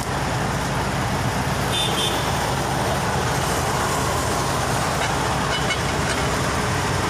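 A diesel truck engine idling steadily with an even low hum, while cars pass on the highway.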